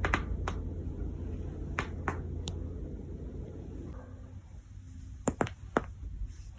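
Spinal joints cracking under a manual twist: about eight sharp pops in two clusters, five spread over the first couple of seconds and three in quick succession near the end, over a low steady rumble.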